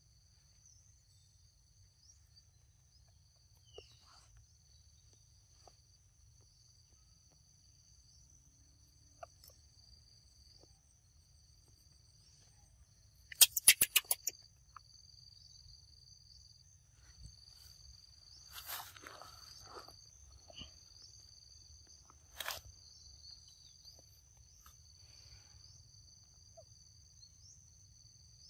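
Insects chirring steadily in two high, level tones. About halfway through there is a short, loud burst of rapid clicks, and a few fainter rustles and crackles follow later.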